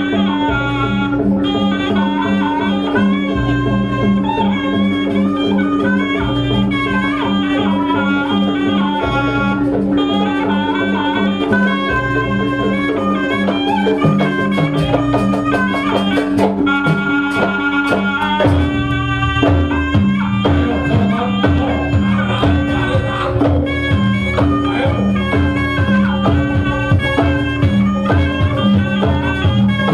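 East Javanese jaranan music: a reed trumpet (slompret) plays a winding melody over drums and a fast repeating gong pattern. About two-thirds of the way through, the drumming becomes denser and heavier in the bass.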